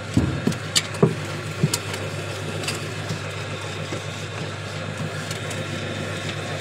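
Cow-dung screw-press dewatering machine running, its electric motor and screw giving a steady hum, with a few short knocks in the first two seconds.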